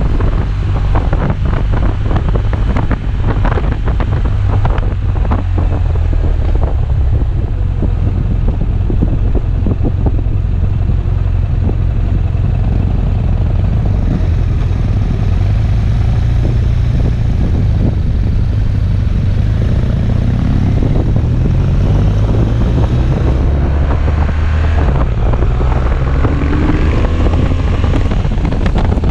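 Motorcycle under way, its engine running steadily under heavy wind buffeting on the microphone. About two-thirds of the way through, the engine note rises as the bike speeds up.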